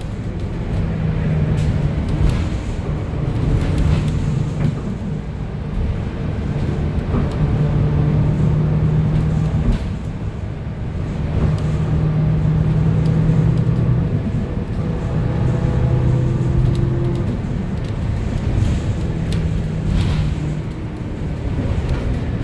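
On board a 2025 Gillig BRT+ CNG transit bus in motion, heard inside the cabin: a steady low rumble of engine and road noise. The engine hum rises and falls in pitch and strength as the bus speeds up and slows. A few short rattles or knocks are heard, one about ten seconds in and one near the end.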